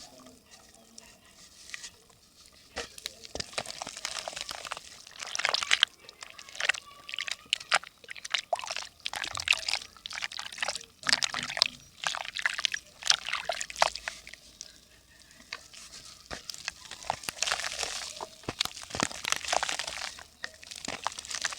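Dry yellow mud in a clay pot crackling and crumbling as water soaks into it. Dense, irregular sharp crackles come in clusters that swell and fade every second or two.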